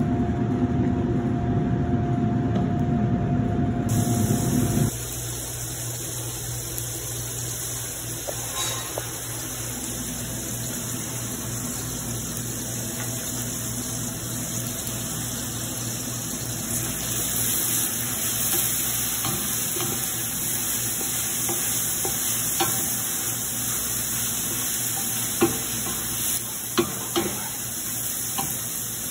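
A loud low rumble for the first few seconds, then bell pepper strips, onion and garlic sizzling steadily in oil in a steel pot. Near the end a wooden spoon stirs them, with a few sharp knocks against the pot.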